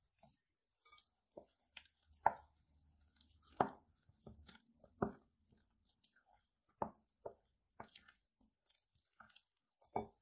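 Wooden spoon stirring thick, wet lentil batter in a glass bowl: irregular squelching scrapes and knocks of the spoon against the bowl, the loudest about two, three and a half, five, seven and ten seconds in.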